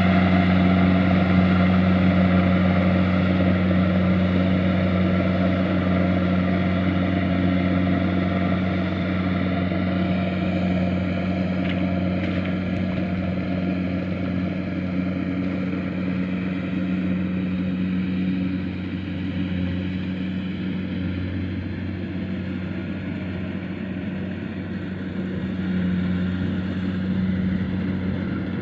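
Engine of rice-harvesting machinery running steadily at one constant speed, slowly growing a little quieter.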